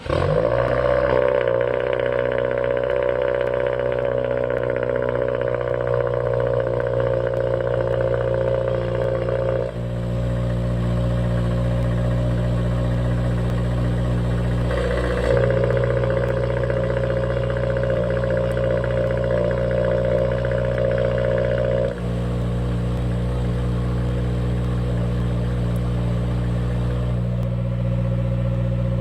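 A 2022+ Subaru WRX's turbocharged flat-four fires up from cold through an XForce VAREX valved cat-back exhaust and holds a steady high cold-start idle with the exhaust rumble. The tone changes abruptly a few times, at about ten, fifteen and twenty-two seconds in.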